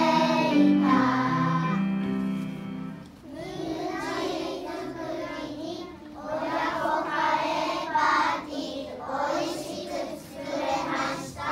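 Kindergarten children's choir singing in unison. The instrumental accompaniment stops about three seconds in, and the children's voices carry on in short phrases with brief pauses between them.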